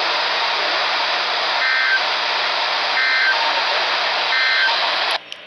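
Weather radio receiver hissing with loud static. Three short EAS end-of-message data bursts, each under half a second and about 1.3 s apart, sound faintly beneath it and close the required weekly test. The static cuts off suddenly near the end.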